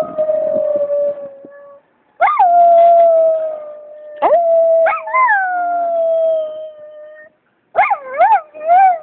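A schnauzer howling: long drawn-out howls that slowly sink in pitch, broken by short pauses, then a quick run of short rising-and-falling yips near the end.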